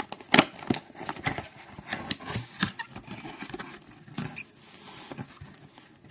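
Cardboard box being opened and its plastic-wrapped contents handled: a string of irregular scrapes, taps and rustles, loudest with a sharp knock about half a second in.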